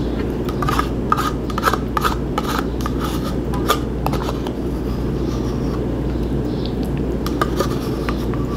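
A spoon scraping and clicking against the inside of a small yogurt cup: a run of short scrapes over the first four seconds and a few more near the end, over a steady low hum.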